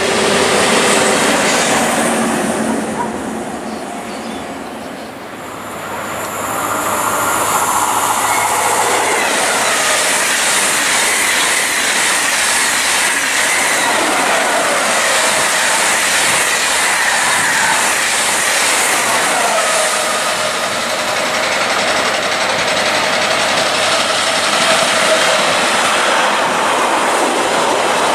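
Trains running through a station: one fading away in the first few seconds, then another passing loudly for the rest, with clattering wheels on the rails and a high whine that rises and falls in pitch.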